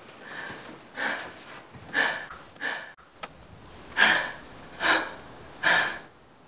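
A woman crying: a string of sniffing, gasping sobbed breaths, about one a second, the strongest about four seconds in.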